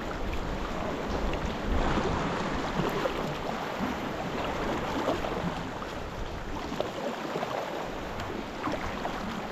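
Sea kayak under way: steady sloshing and splashing of sea water around the paddles and hull, with a wash of wind.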